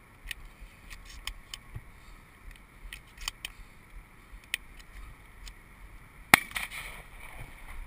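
Scattered light clicks and knocks of handling noise from a camera mounted on a shotgun, with one sharp, much louder click about six seconds in.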